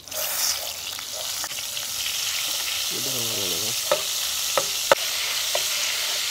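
Butter melting and sizzling in hot refined oil in a steel wok, stirred with a metal ladle. A steady frying hiss starts suddenly at the outset, with a few sharp clinks of the ladle against the pan.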